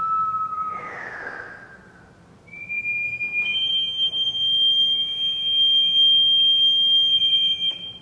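Water instrument sounding sustained, pure, whistle-like tones: a held tone at the start sags slightly and fades, a brief falling glide comes about a second in, then higher tones enter about two and a half and three and a half seconds in and hold steady.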